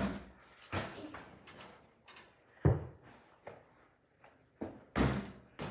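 A basketball's thuds and bounces during indoor shots: about five sharp knocks, the loudest a little under three seconds in.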